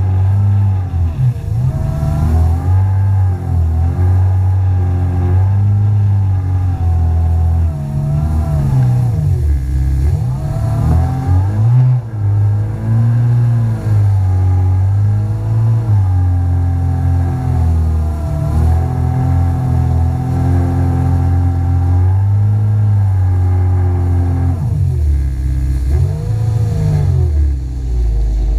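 Jet ski engine running under way, its pitch rising and falling again and again as the throttle is opened and eased off through the bends.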